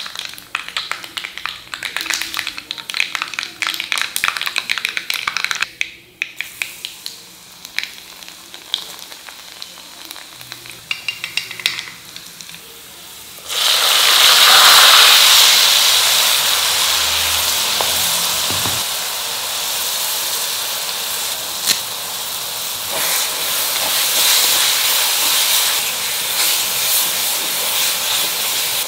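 Mustard seeds popping and crackling in hot sesame oil in a stone pan for the first several seconds. About halfway through, chopped onions tipped into the oil set off a sudden loud, steady sizzle that carries on as they are stirred.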